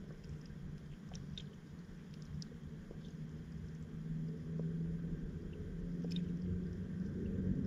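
Muffled underwater ambience picked up by a submerged camera: a low rumble with a steady hum that grows louder in the second half, and scattered faint clicks.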